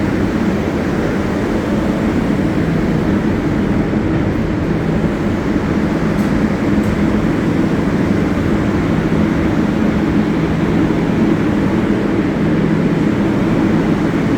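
A New York City Subway 7 train in the station, a steady rumble with a low, even hum.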